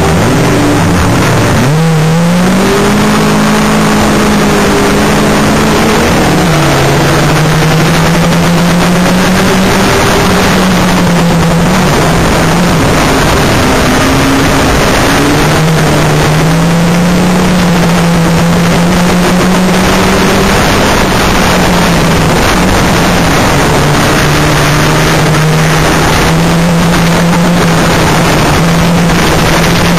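Banger racing car's engine heard from on board during a race, loud and unbroken, its pitch rising and falling as it accelerates and lifts through the corners, with a rough noise over it.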